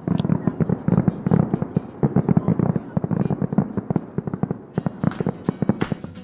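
Fireworks going off in a dense, fast run of pops and bangs that thins out near the end, with a steady high chirring of crickets behind.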